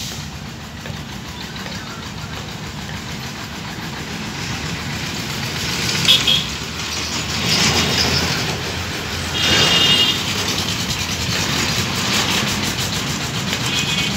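Diesel-electric locomotive pulling a passenger train out of a station, its engine running low and steady and growing louder as it comes closer. A few short high-pitched sounds stand out over it, about six seconds in, near ten seconds and at the very end.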